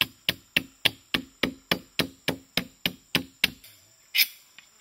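Bone chisel chopping into the wood of a shield being carved, in quick, even strokes about three and a half a second. The strokes stop about three and a half seconds in, and one more strike comes shortly after.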